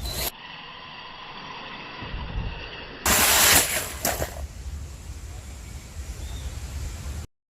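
Radio-controlled car run outdoors: a steady low rumble with a loud rushing noise about three seconds in, lasting about a second, followed by a few shorter noisy bursts.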